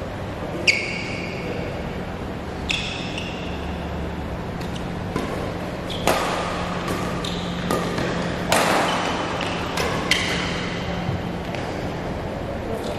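Badminton rally: rackets striking a shuttlecock about every one to two seconds, each hit a sharp crack, and several followed by a short ringing ping from the strings, echoing in a large hall.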